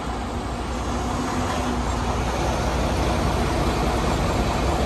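Diesel engine of a semi truck idling with a steady low rumble under an even hiss, rising slightly in level over a few seconds.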